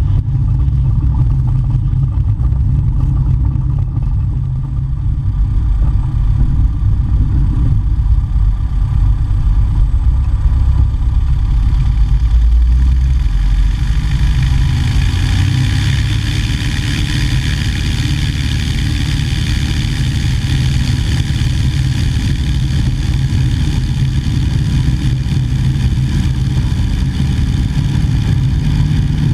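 A 1950 Cessna 170A's six-cylinder Continental engine and propeller running steadily. About halfway through, a higher hiss grows in over the engine sound.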